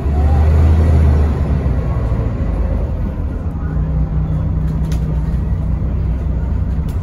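Mercedes-Benz O405NH bus's diesel engine and drivetrain running, heard from inside the passenger cabin as a loud low rumble. It is heaviest for about the first second, then settles to a steady run with a faint hum joining about halfway through.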